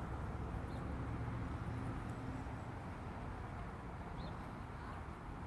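Steady low hum of parking-lot traffic and engines, with two faint short high chirps from a small bird, one about a second in and one about four seconds in.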